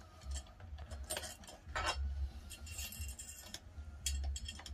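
Metal clinks, rattles and scrapes from a homemade metal contraption being worked by hand over a pot of ajvar, with a low irregular rumble underneath.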